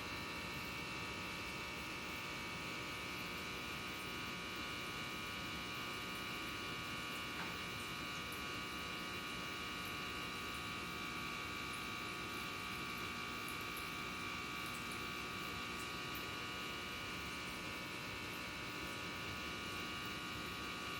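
Steady electrical hum with several high, unchanging whining tones over a low background hiss.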